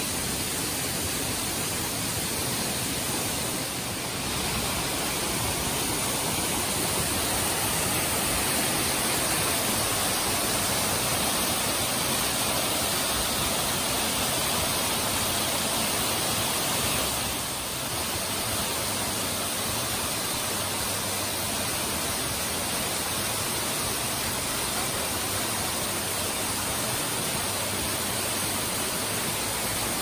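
Waterfall cascading over rock steps: a steady, full rush of falling water, dipping briefly twice.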